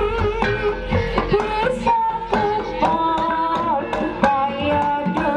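Javanese jaranan ensemble music: fast, steady drum strokes under a wavering melody line.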